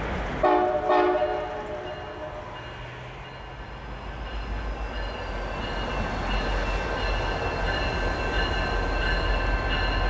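Diesel locomotive horn giving two short blasts. Then the low rumble of a diesel locomotive grows louder as it approaches, with a faint high whine.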